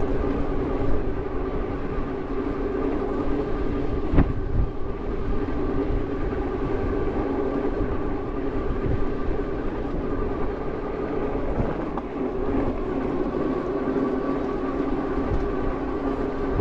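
Strong wind buffeting the microphone while riding, with a steady hum underneath and a single sharp knock about four seconds in.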